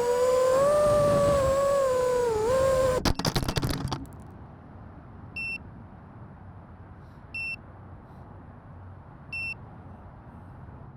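5-inch FPV quadcopter motors and props whining, the pitch rising and falling with throttle. About three seconds in, the whine gives way to a second of jumbled clattering and stops. After that a short electronic beep sounds every two seconds over a low hiss.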